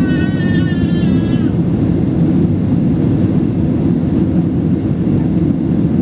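Steady cabin noise of an Airbus A320-200 in its climb, engine and airflow together as a loud, even rumble. Over the first second and a half a short, high, wavering pitched sound sits on top of it.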